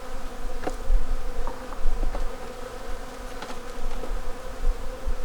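Honeybees buzzing around an open beehive, a steady hum, with a few faint clicks.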